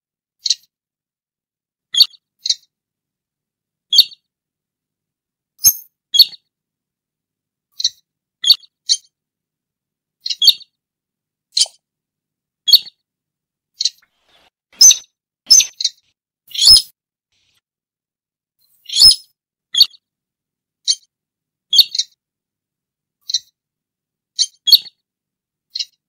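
Buff-banded rail calls: short, sharp, high notes repeated about once a second, often in quick pairs, with clean silence between them.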